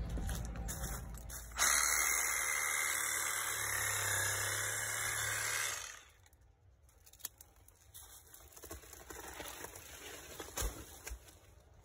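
Milwaukee cordless reciprocating saw running and cutting through a soft banana palm trunk for about four seconds, starting suddenly and stopping sharply. It is followed by faint rustling and clicks as the cut stem is handled.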